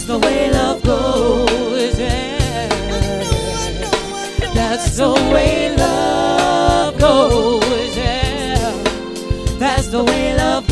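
Soul song with a woman's voice singing long, wavering runs, with drums beneath.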